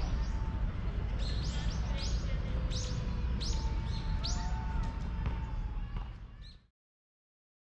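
Outdoor park ambience with a steady low rumble, and a bird calling a quick series of about eight sharp, rising chirps from about a second in to about four seconds in. The sound fades and cuts to silence near the end.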